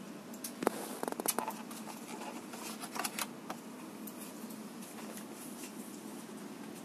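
Clear plastic ESD CPU tray clicking and crackling as it is handled, with a quick run of clicks about a second in and a few more around three seconds, over a steady low room hum.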